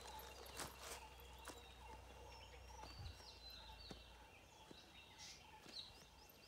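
Near silence: quiet outdoor ambience with faint, scattered bird chirps and a few soft ticks.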